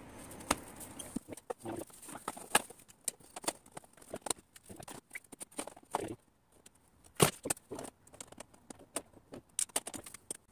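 Irregular clicks and knocks of an aluminium angle strip being handled and set against a wooden shelf, with a few sharper knocks, the loudest about seven seconds in.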